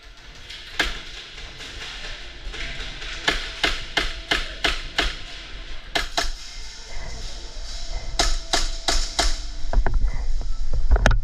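Airsoft guns firing: a string of sharp snapping shots, some single and some in quick runs of four or five.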